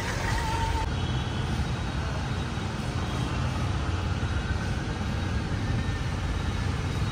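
Shikara boat's motor running steadily under way, a low even drone with the wash of churned water around the hull.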